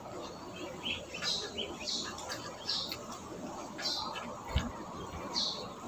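A bird chirping, short high chirps about seven times, with a single dull low knock a little past halfway.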